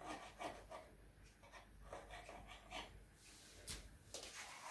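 Quiet kitchen handling sounds: faint rustles and light taps, with one sharp click about three and a half seconds in, as a knife trims shortcrust pastry against the rim of a metal springform tin.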